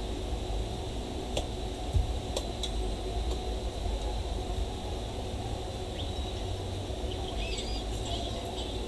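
Steady low background hum and hiss, with a few sharp clicks about one and a half to two and a half seconds in and faint high chirps near the end.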